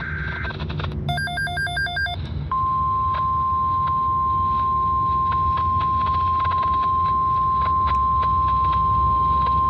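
A quick run of short electronic beeps about a second in, then a steady single-pitch weather radio alert tone starting about two and a half seconds in, over a background of radio static and crackle; the tone signals the start of an alert broadcast.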